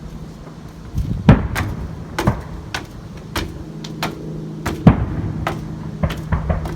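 Fireworks going off in an irregular string of sharp bangs and pops, the loudest about a second and a quarter in and again near five seconds, over a steady low hum.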